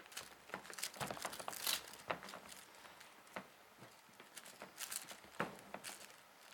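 Kittens playing: quick, irregular taps, scratches and rustles of small paws scampering, in two busy flurries about a second in and again around five seconds in.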